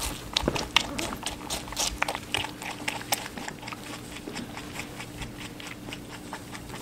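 A rabbit chewing a slice of watermelon close to a microphone: quick crisp chewing clicks, several a second, louder in the first few seconds and softer after.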